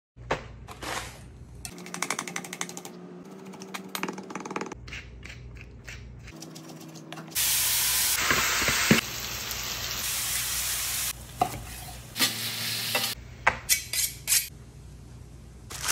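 Chef's knife chopping garlic on a wooden butcher block in quick taps, then black pearl oyster mushrooms sizzling loudly in a cast iron skillet, the loudest part, for about four seconds in the middle. A few sharp clicks near the end.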